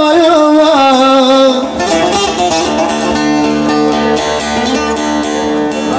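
A man's voice finishes a long, wavering sung phrase of Turkish folk song. From about two seconds in, a bağlama (long-necked Turkish lute) plays an instrumental passage on its own with plucked notes.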